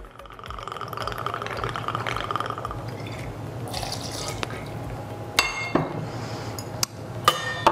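Bourbon poured from a bottle's pour spout into a steel jigger, a steady trickle for about three seconds, then the jigger emptied into a glass mixing glass. Two sharp ringing clinks of metal and glass follow near the end.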